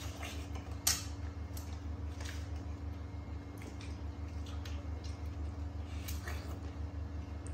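Scattered crisp clicks and crunches of watermelon slices being picked off a ceramic plate and bitten, the sharpest about a second in, over a steady low hum.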